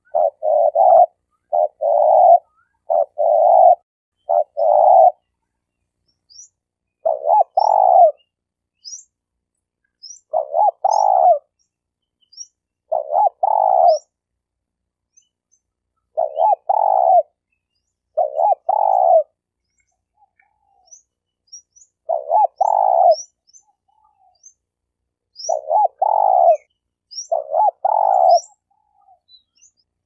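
Spotted dove (tekukur) cooing: short bursts of quick coos at first, then repeated phrases of two or three notes, each ending on a longer coo, one every two to three seconds. Faint high chirps from another small bird come through in two runs.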